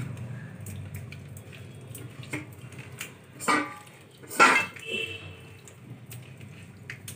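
Hand rubbing spices into raw fish pieces on a steel plate: soft wet squishing, with a few short clinks on the plate, the two loudest about three and a half and four and a half seconds in.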